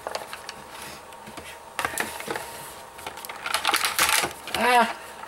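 Stiff clear plastic blister packaging crinkling and crackling in irregular bursts as it is bent and pulled open by hand, the toy not yet coming free. A brief pitched sound, rising then falling, about three-quarters through is the loudest moment.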